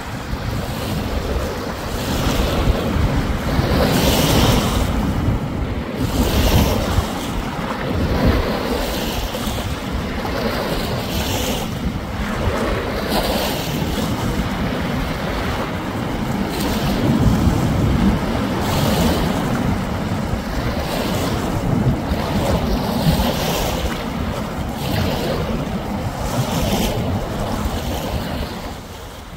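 Small Lake Superior waves breaking and washing onto a sandy beach, a fresh wash every couple of seconds, with wind buffeting the microphone in a steady low rumble.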